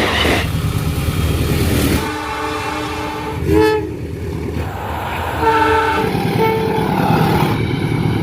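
Passenger-train locomotive horn sounding several blasts: one about a second in, a short toot in the middle, and a longer one after five seconds. Under them runs the steady loud rush of the train passing at speed.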